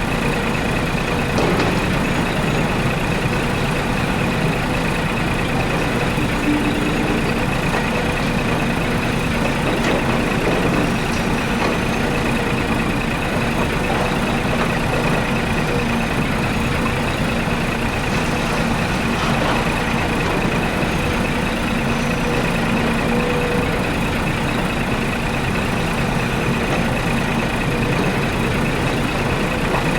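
Steady truck-engine running sound, unchanging throughout, with a constant low hum and a thin high whine.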